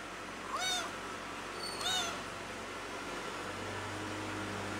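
Young kitten meowing twice, short high calls that rise and fall in pitch: a kitten crying for its mother. A steady low hum comes in about three and a half seconds in.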